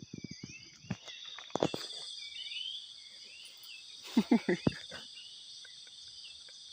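Night insects such as crickets chirring steadily in a high, dense band. About four seconds in, a brief cluster of short, louder sounds cuts across it.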